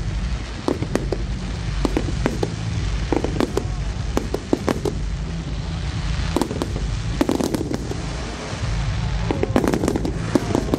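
Aerial fireworks display: a rapid, irregular run of bangs and crackling bursts over a continuous low rumble, growing denser near the end.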